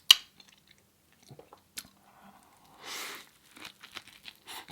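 Close-miked eating sounds of a person biting into and chewing a veggie burger: scattered wet clicks and mouth smacks, a sharp loud click just after the start, and a short rushing noise about three seconds in.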